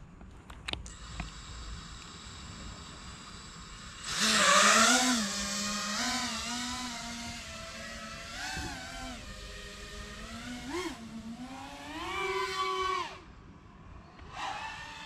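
FPV quadcopter's brushless motors and propellers: a steady idle whine, then a sudden loud burst of throttle about four seconds in as it takes off, followed by a buzzing whine that rises and falls in pitch with the throttle, easing off near the end before picking up again.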